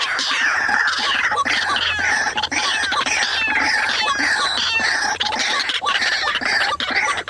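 White-breasted waterhens calling: many short, repeated calls overlapping each other without a break, mixed with quick chirps and clicks.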